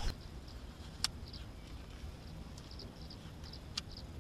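A small bird chirping repeatedly: short high chirps, often in quick pairs, several times a second, over a quiet outdoor background. Two sharp clicks sound, one about a second in and one near the end.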